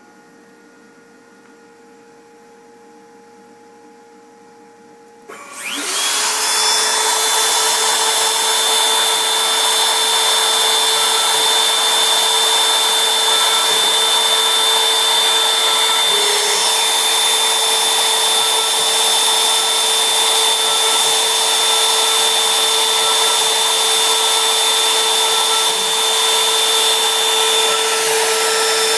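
Fireball V90 CNC machine's spindle spins up about five seconds in with a quick rising whine, then runs at a steady, loud, high-pitched whine with hiss while it drills holes in a copper-clad circuit board.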